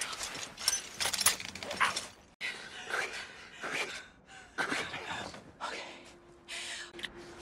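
Pained gasps, groans and strained breathing from people struggling over a leg caught in a trap, with scuffling in snow. A low held note comes in near the end.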